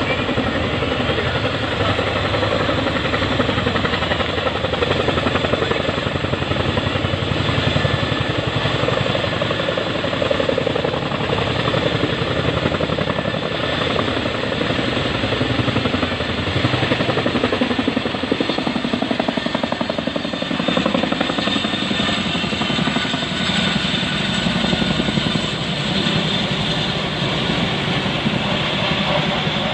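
Boeing CH-47 Chinook tandem-rotor helicopter flying low past, its two rotors chopping in a rapid, steady beat over the whine of its engines.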